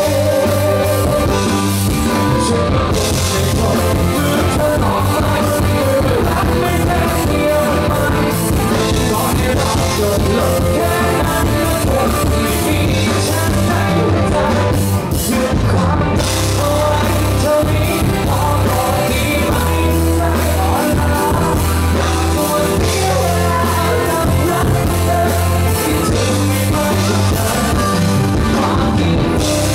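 Live rock-pop band playing a song on a concert stage, with a male lead vocalist singing over a strong bass and a steady drum beat.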